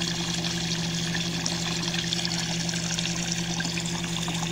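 ACO-318 electromagnetic aquarium air pump running with a steady hum, over the continuous sound of running, trickling water.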